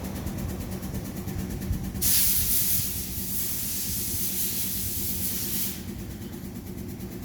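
A machine's engine or pump runs with a steady hum. About two seconds in, a loud hiss starts, holds for about three and a half seconds, then cuts off while the hum carries on.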